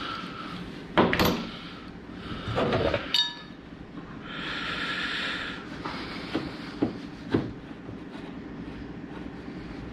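Metal knocks and clinks from hand tools and door-hinge hardware being handled, with a loud knock about a second in and a short ringing clink about three seconds in, then a few lighter clicks.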